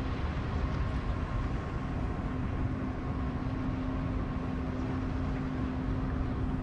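Wind rumbling on the microphone outdoors, with a faint steady hum underneath that grows a little stronger about two and a half seconds in.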